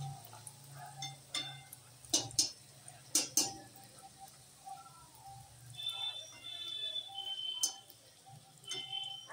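Fish-stuffed kochuri frying in hot oil in a wok, with a metal slotted spatula clinking sharply against the wok: two pairs of clinks around two and three seconds in, and one more later.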